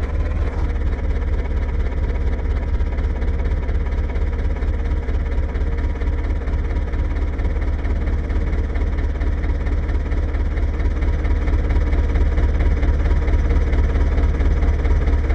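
Diesel tractor engine running steadily at close range, a heavy low rumble with rapid even pulsing.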